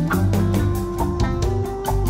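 Background music: an instrumental stretch of a song with guitar and a steady drum beat, about four beats a second.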